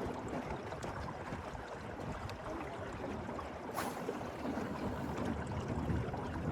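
Steady outdoor background noise of moving water or air, with one sharp click a little under four seconds in.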